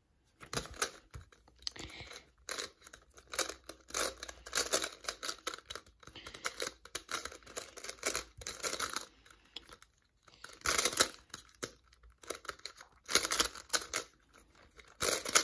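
Plastic clicking and clacking of a GAN Skewb puzzle being turned quickly by hand during a speedsolve, in rapid bursts of turns broken by short pauses.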